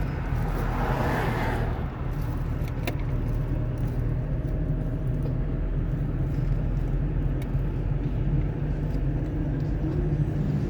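Car driving on a wet road, with a steady low rumble of engine and tyres. A brief swell of hissing noise comes in the first two seconds, and a single click about three seconds in.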